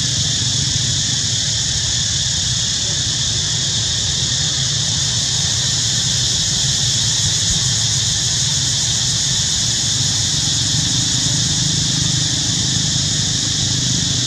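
Steady background noise: an even high hiss over a low hum, with no distinct sounds standing out.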